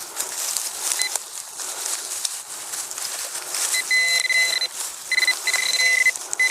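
Pro-Pointer pinpointer probe sounding a steady high beep in several stretches of about a second, from about four seconds in, as it closes on a target in the soil. Under it runs a constant scratchy crumbling of soil being dug and scraped through.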